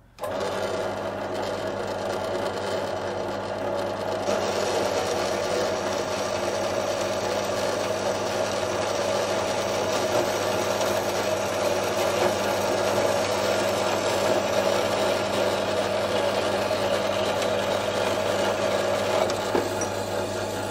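Horizontal metal-cutting bandsaw switched on and cutting through a hexagonal steel joining nut: a steady motor and blade drone starts at once, and about four seconds in the sound turns brighter and a little louder as the blade bites into the bar, then runs on steadily through the cut.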